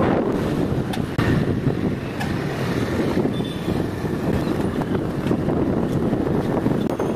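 Wind buffeting the microphone over steady road and traffic noise from a vehicle moving through town traffic.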